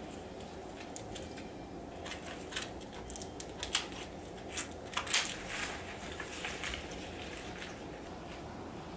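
A run of small, irregular crackling clicks from a flower bouquet being handled, stems and wrapping crinkling and snapping, loudest about five seconds in, over a faint steady room hum.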